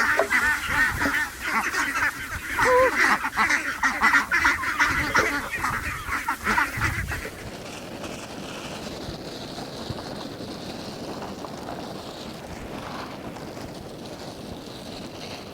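A flock of ducks quacking together in a dense, loud clamour for about seven seconds, then it stops and only a steady, quieter background noise remains.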